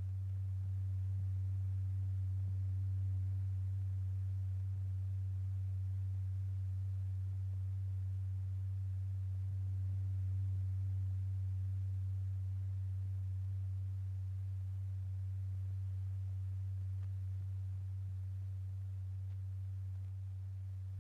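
Steady low pure tone, the note exciting a powder-strewn paper diaphragm in a cymatics experiment, with faint overtones. It holds one pitch throughout while its loudness swells a little and eases off near the end; the changing intensity of the tone is what drives the powder's changing patterns.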